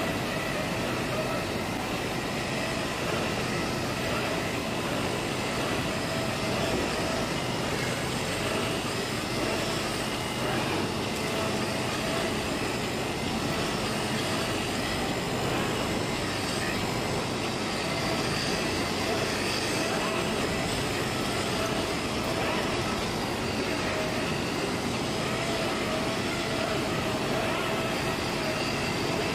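Automatic CNC fabric cutting machine running, with the steady drone of the two vacuum blowers that hold the fabric down on the cutting table, and a faint whine that wavers at times.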